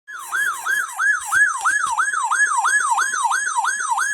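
Electronic siren-style alert tone: rapid, evenly repeating falling sweeps, about four a second, over a faint steady tone underneath.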